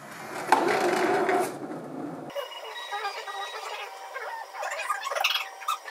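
A small motor whirs for about a second and a half: the 3D printer's AMS feeder gripping and drawing in newly inserted filament. After a sudden cut come faint steady high tones with scattered light clicks.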